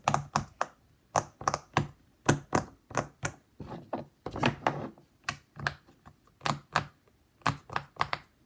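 A toy puppet, a fidget toy, clacking as it is worked by hand: a run of sharp clicks at about three a second, with a couple of short pauses.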